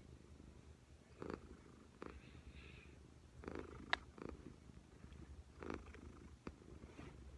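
Domestic cat purring: a steady low rumble with short breathy pulses every second or so, and one sharp click about four seconds in.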